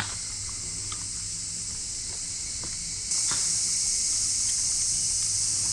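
Insects buzzing steadily in a high, hissing drone, which gets louder suddenly about three seconds in. A sharp click sounds at the very start, and a few fainter ticks follow.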